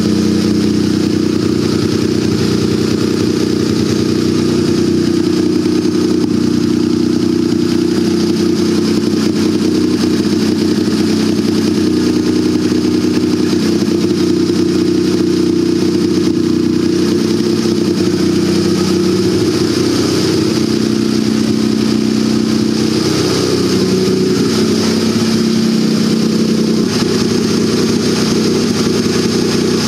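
Turbocharged Mitsubishi 3A92 three-cylinder engine idling steadily after a cold start, its speed wavering slightly in the last few seconds. It now holds an idle instead of stalling, with the VVT solenoid no longer set to active by default.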